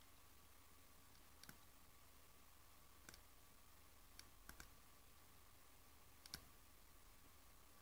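Faint computer mouse clicks, about five spread over the seconds, with the last one the loudest, over near-silent room tone with a faint steady hum.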